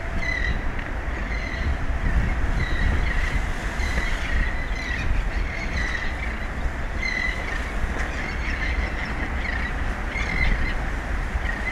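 Strong wind buffeting the microphone in a steady low rumble, with short high-pitched squeaks repeating every second or so.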